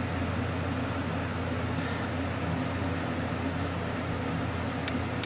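Steady low mechanical hum with a faint hiss, like a running fan or motor, and two short sharp clicks near the end.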